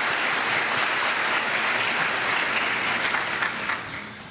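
Church congregation applauding, the clapping dying away in the last second.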